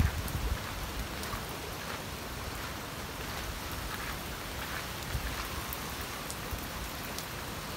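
Rain falling: a steady hiss with scattered faint ticks of drops.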